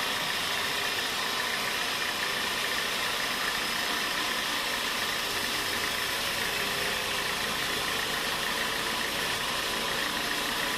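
Sawmill machinery running steadily, a continuous mechanical noise with a faint steady whine.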